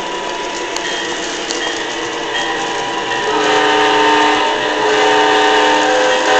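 Lionel GE Dash-9 O-gauge model diesel locomotive running along the track: wheels rolling and motor noise, mixed with held tones from its onboard electronic sound system. The sound grows louder from about three seconds in as the engine approaches.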